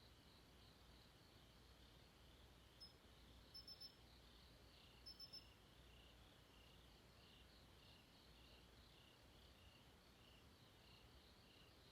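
Faint night insect chorus of crickets chirping in a steady, pulsing trill. About three seconds in and again about five seconds in comes a quick run of three sharp, high chirps, the loudest sounds, over a faint low hum.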